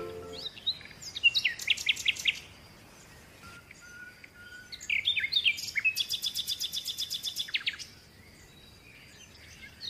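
Songbirds chirping: a short run of quick, high, falling chirps about a second in, then a fast, even trill of high notes from about five to nearly eight seconds.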